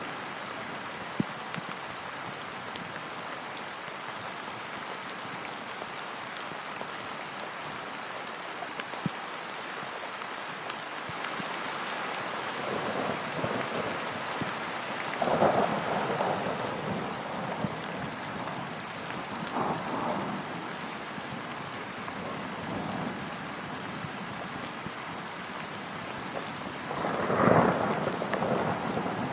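Steady rain falling, with rolls of thunder swelling up out of it about halfway through, again a few seconds later, and loudest near the end.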